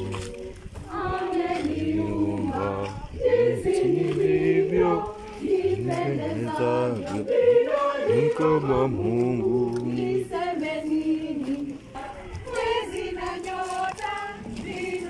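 A church choir of mixed voices singing a Swahili hymn together. The singing dies down about ten seconds in, leaving fainter scattered voices.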